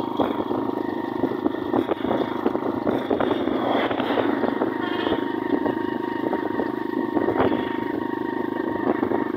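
Motorcycle engine running steadily at cruising speed, heard from the pillion seat as the bike rides along a road.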